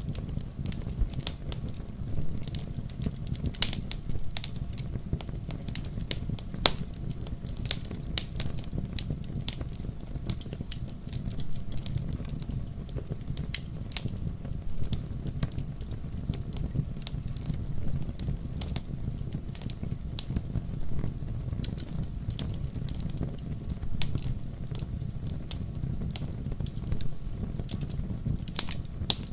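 Bonfire crackling: frequent sharp pops and snaps scattered irregularly over a steady low rumble.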